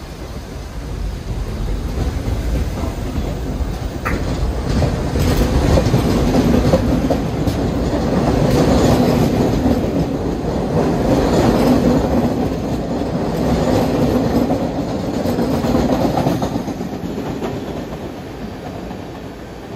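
New York City subway train running past, its noise building over several seconds, staying loud, then fading away near the end.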